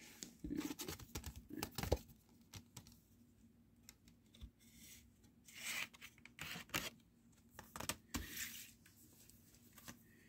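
Faint handling noise of cardboard CD sleeves and discs: scattered rubbing and scraping with a few clicks, in short bursts.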